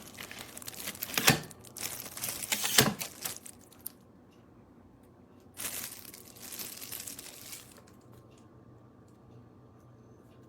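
Rustling and crinkling handling noises with a couple of sharp knocks in the first three seconds, then a pause and a shorter, softer rustle.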